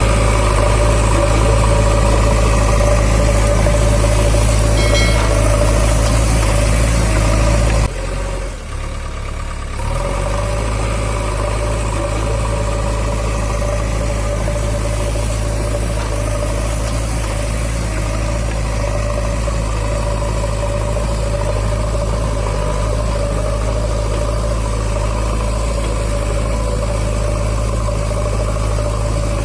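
Steady engine running at idle, with a low hum and a steady tone, which drops out for about two seconds around eight seconds in.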